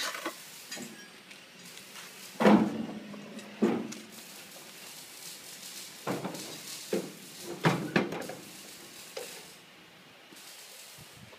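Irregular metal clanks and knocks, about seven, from handling a single-cylinder diesel engine and its steel mounting frame during assembly, the loudest two about two and a half and three and a half seconds in. The engine is not running.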